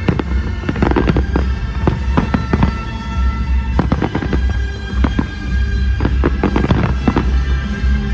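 Fireworks going off in rapid, irregular succession, many sharp bangs and crackles close together, over loud accompanying music.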